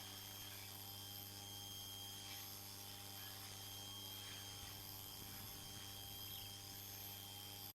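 Faint steady hum and hiss with a few fixed tones, unchanging throughout.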